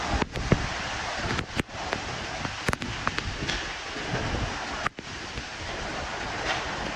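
Heavy rain and wind, the wind buffeting the microphone, with several sharp clicks scattered through.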